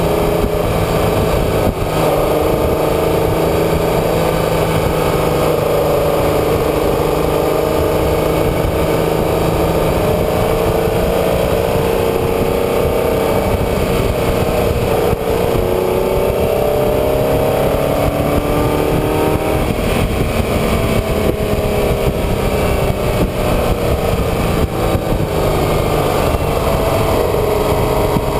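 A motor vehicle's engine driving steadily, its revs rising and falling repeatedly, over constant road and wind noise.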